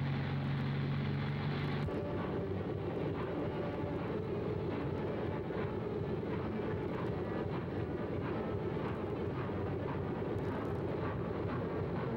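A held low chord stops abruptly about two seconds in. It gives way to the steady, noisy running of a streamlined 4-6-4 Hudson steam locomotive pulling its train out of the station: a dense rush with many fine ticks.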